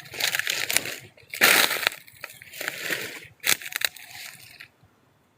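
Footsteps crunching and rustling through dry leaves, twigs and brush in forest undergrowth, in irregular bursts that stop abruptly near the end.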